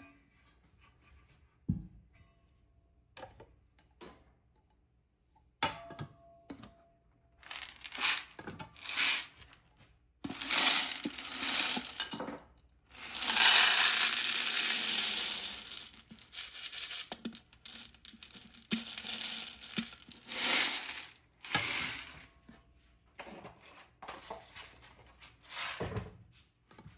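Popcorn and its crinkly packaging handled close to the microphone: a dull knock, then a string of short rustling, crinkling bursts, the longest and loudest a few seconds of steady rustle about halfway through.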